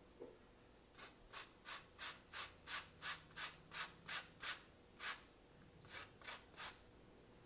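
An orange being zested on a handheld metal grater: a run of short scraping strokes, about three a second, starting about a second in, with a brief pause partway through.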